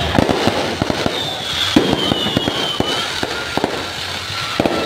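Fireworks display: rapid bangs and crackling from bursting aerial shells and fountains, with a long high whistle that slides slowly down in pitch in the middle of the display.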